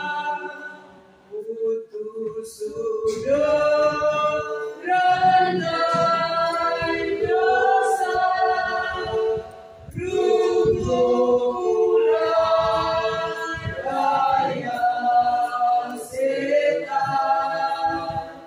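A church choir singing a hymn unaccompanied, in long held phrases with brief pauses between them.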